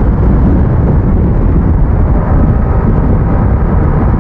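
Motorcycle on the move, most likely a Bajaj Pulsar RS200: heavy wind rush and buffeting on a rider-mounted microphone over the engine and road noise. The sound is a steady, loud rumble.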